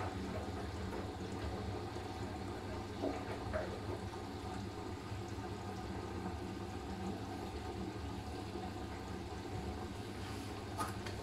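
Siemens iQ500 front-loading washing machine mid-cycle, before its final spin: water sloshing and running in the drum over a steady low hum, with a couple of light knocks about three seconds in and another near the end.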